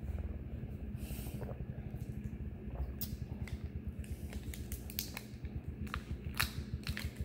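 A plastic water bottle being handled, giving scattered light clicks and crackles, more of them in the second half, over a steady low hum.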